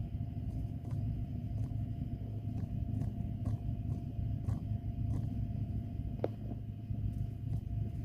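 Suitcase wheels rolling over a hard surface: a steady low rumble with a sharp click every half second to a second.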